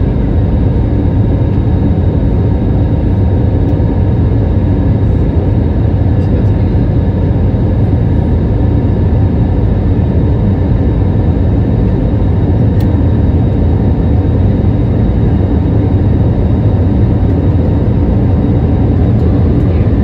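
Cabin noise of an Airbus A320neo (CFM LEAP-1A engines) in flight, heard at a window seat over the wing: a loud, steady low roar of engines and airflow with a faint steady whine over it.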